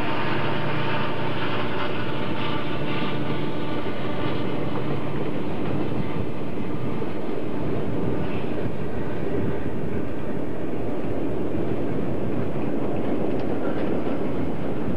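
Union Pacific freight train's boxcars rolling past: a steady, loud rumble of steel wheels on rail with some clickety-clack. The hum of the just-passed diesel locomotives fades out over the first few seconds.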